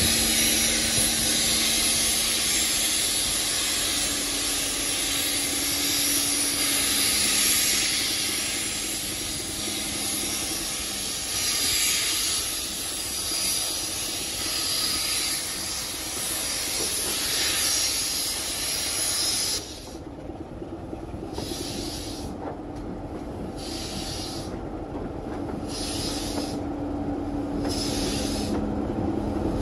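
LMS Stanier Black Five 4-6-0 steam locomotive 5025 pulling away with steam hissing steadily. The hiss cuts off abruptly about two-thirds of the way through, leaving regular exhaust chuffs about every second and a half as the engine works the train out of the station.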